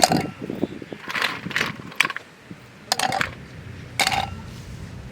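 Hard objects clinking and clattering: about half a dozen sharp, briefly ringing knocks at uneven intervals, like metal or hard items being handled and set down.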